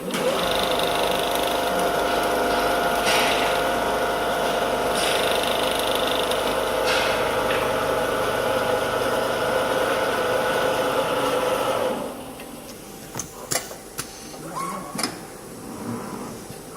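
Richpeace automatic template sewing machine running at speed, stitching steadily, then stopping abruptly about twelve seconds in; a few sharp clicks follow.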